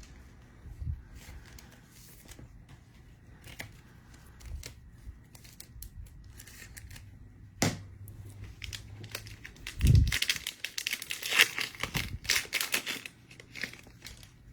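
Foil trading-card pack being torn open and its wrapper crinkled, the crinkling loudest about ten seconds in, after a low thump. Scattered light clicks and taps come before it.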